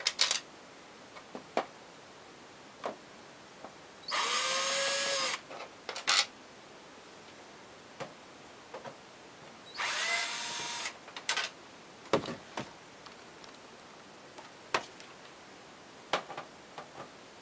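Power drill backing out screws in two short bursts of about a second each, the motor whirring up and winding down each time, with scattered clicks and knocks of handling in between.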